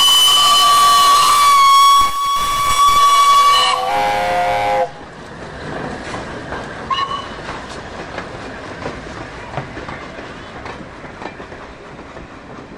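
Locomotive whistle sounding: a long high chord lasting about four seconds, then a lower chord for about a second. After that the train runs with wheels clattering over the rail joints, with a brief short toot about seven seconds in.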